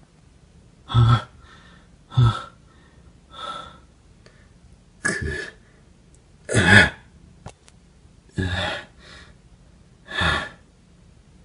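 A man's voice making short, breathy exclamations, about seven of them, one every one to two seconds.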